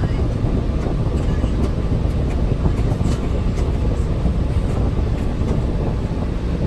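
Steady low rumble of a city bus driving, heard from inside the passenger cabin, with a few faint clicks and rattles.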